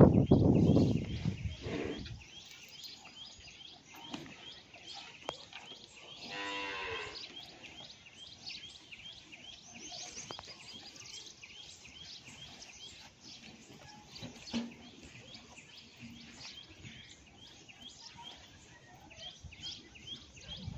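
A Banni water buffalo gives a single moo of about a second, some six seconds in, over high, rapid chirping that runs throughout. A loud low rumble fades out over the first two seconds.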